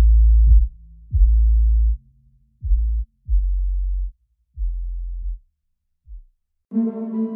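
Background electronic music: a run of deep bass notes, each starting with a sharp hit, growing quieter and shorter, then a sustained synth chord begins near the end.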